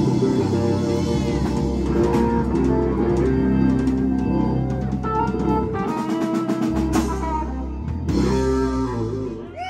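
A live rock band playing: electric guitar, electric bass, drum kit and keyboard together. The bass and kick drop out for about a second around the middle, then come back in.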